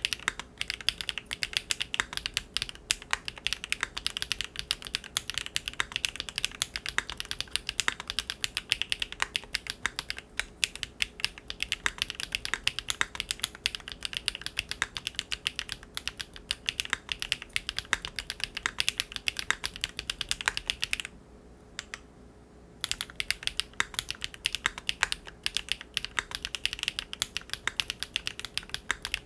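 Steady, fast typing on a Big Whale custom mechanical keyboard fitted with GEON Raw Zero switches on a polycarbonate plate, many keystrokes a second, with a pause of about two seconds about two-thirds of the way through.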